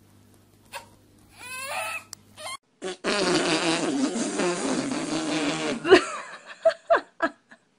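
A long, loud fart noise of about three seconds, starting about three seconds in, followed by several short sharp sounds.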